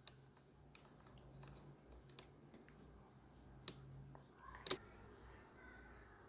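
Near silence with a few faint clicks, the clearest a little before and a little after the four-second mark.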